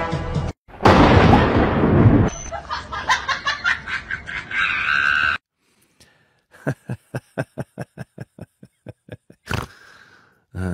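A sudden loud blast of noise about a second in, lasting over a second, with scattered sounds after it. Then a small black kitten laps milk from a glass bowl: quick, even lapping ticks, about five a second, for about three seconds.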